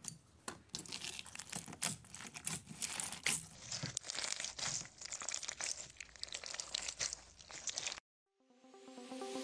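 Clear slime packed with silver beads being pressed and squeezed by hand, giving a dense run of crackles and clicks. This stops abruptly about eight seconds in, and after a moment's silence a rising whoosh begins near the end.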